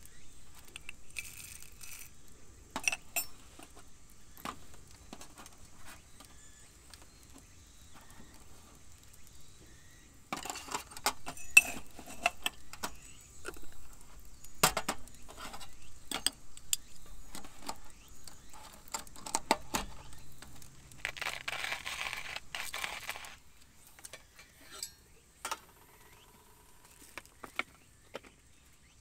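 Whole coffee beans rattling and a metal scoop clinking against a glass jar: a string of small clicks and clinks, with a denser rattle lasting about two seconds two-thirds of the way through.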